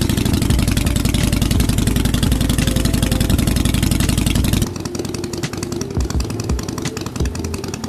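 A Harley-Davidson Sportster Forty-Eight's air-cooled V-twin idling through its freshly painted aftermarket exhaust, seconds after starting, with a steady, fast, loping beat. A little past halfway it drops in level and sounds thinner and more uneven.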